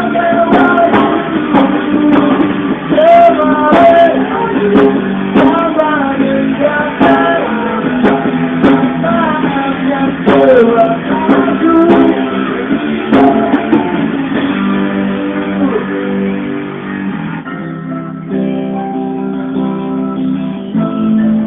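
Live band music with guitar and a sung melody; the voice drops out about two-thirds of the way through, leaving the band playing held notes. The sound is dull and lo-fi, with no treble.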